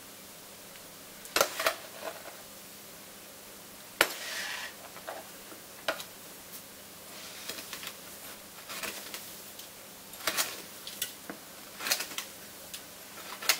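Metal spoon clinking and tapping against a plastic container and bowl while sugar is scooped and measured out: a scatter of sharp clinks, some in quick pairs, with a short rustle of sugar just after the knock about four seconds in.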